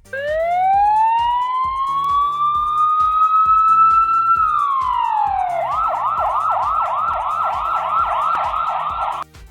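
Police car siren: a long wail rising slowly, holding high, then sliding down, after which it switches to a fast yelp of about three or four quick rising whoops a second that cuts off suddenly near the end.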